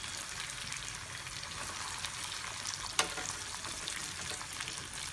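Batter-coated mutton pakoras deep-frying in hot oil: a steady sizzle with small crackles and pops. There is one sharp click about three seconds in.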